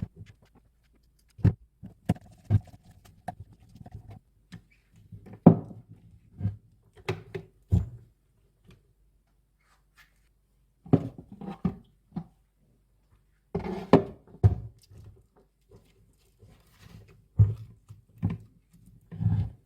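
Irregular knocks, taps and clicks from hands working on an electric fan during its motor replacement. The noises come in short clusters with quiet gaps between them, and no fan motor is running.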